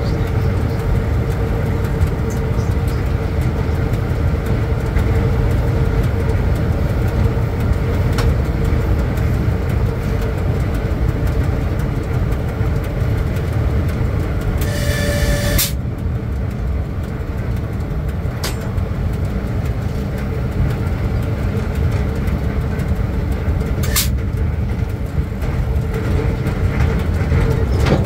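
Cab noise of a ChS4 electric locomotive under way: a loud, steady low rumble with a constant hum. About halfway through a pitched signal tone sounds for about a second, and a few sharp clicks come through.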